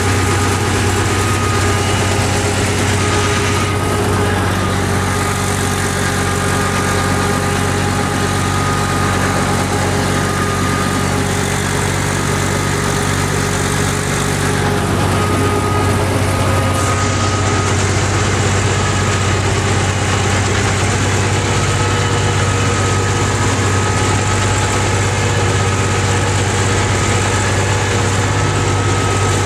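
Ursus C-360 3P tractor's three-cylinder Perkins diesel engine running steadily as the tractor drives across a field, heard from the driver's seat with a constant low drone.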